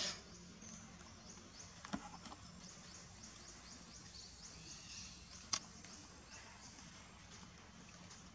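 Faint forest ambience: a high chirping repeated about four times a second through the middle, over a low steady hum, with a few sharp clicks near the start, about two seconds in and about five and a half seconds in.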